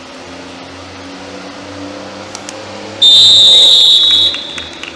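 A referee's whistle blown once: a single loud, steady, shrill blast of a little over a second, starting about three seconds in.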